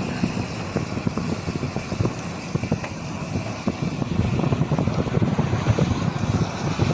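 Car on the move: steady road rumble with wind buffeting the microphone in many short low thumps.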